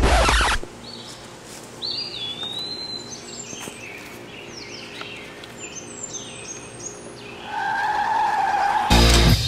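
A loud burst of noise at the very start, then birds chirping. Near the end a car's tires squeal for more than a second, and loud rock music cuts in just before it ends.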